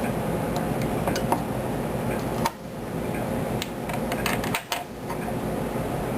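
Small metal parts of an airsoft rifle trigger box clicking and clinking as they are handled with tools, over a steady low hum.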